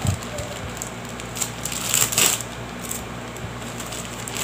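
Packaging and small plastic pieces being handled: a low thump at the start, scattered small clicks and taps, and a louder rustle about two seconds in.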